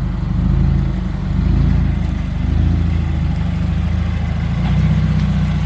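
Subaru WRX's turbocharged flat-four engine running through a muffler-deleted exhaust, with small rises and falls in revs.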